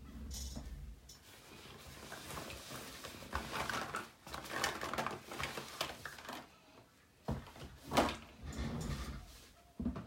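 Craft supplies being handled on a desk, with irregular rustling and scraping and a sharp click about eight seconds in.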